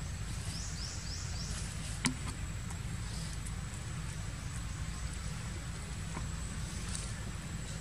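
Outdoor ambience: a steady low rumble under a thin, steady high insect drone, with four quick falling chirps about a second in and a single sharp click about two seconds in.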